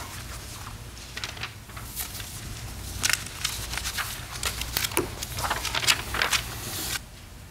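Sheets of paper rustling and crackling as photo printouts are handled and passed along, in a run of short crisp rustles that grow busiest in the second half.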